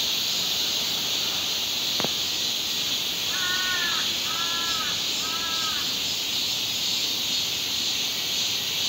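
A crow cawing three times in a row, each caw about half a second long, over a steady high drone of insects. There is a single sharp click a couple of seconds before the caws.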